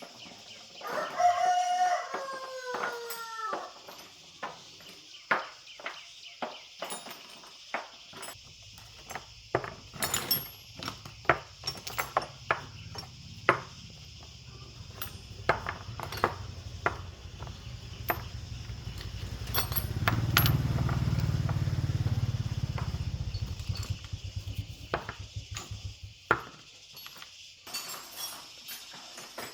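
A rooster crows once near the start, a stepped call falling in pitch. After it come scattered sharp clicks and knocks, with a low rumble that swells through the middle and stops a few seconds before the end, over a steady high hiss.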